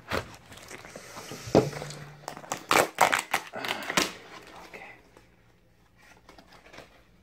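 A small cardboard box being slit open along its tape and its flaps pulled apart: scratchy scraping, cardboard crackles and sharp clicks, loudest in the first four seconds and quieter handling after that.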